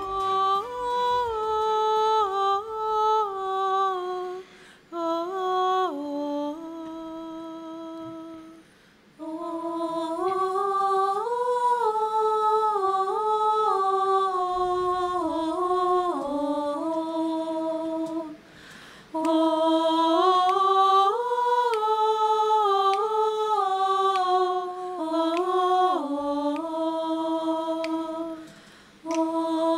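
A mixed a cappella vocal group singing a melody with voices only, no instruments, in phrases separated by brief pauses.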